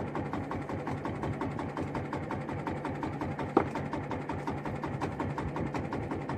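Small engine idling with an even rhythm of about eight beats a second over a steady low hum, with one sharp knock about three and a half seconds in.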